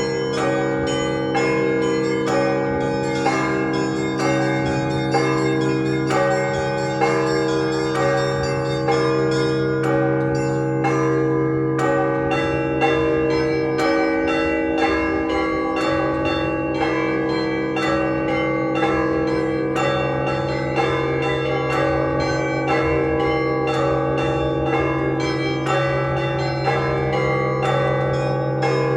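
Russian Orthodox festive ringing on a set of 48 church bells. Smaller bells are struck in quick, regular patterns over the steady hum of the large bells; the deepest tone drops out briefly about halfway through.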